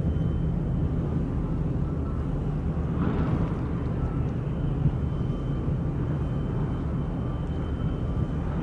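Steady low rumble of a large container ship and its escorting tug under way in the harbour, heard from the shore, with a faint steady high tone over it.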